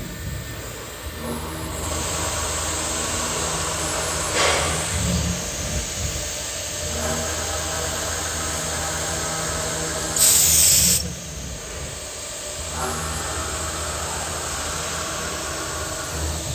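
CNC router with a water-cooled spindle running at a steady high whine and drilling aluminium, the cutting sound coming and going in stretches of a few seconds. A loud hiss lasting under a second cuts in about ten seconds in, with a shorter sharp burst near the start.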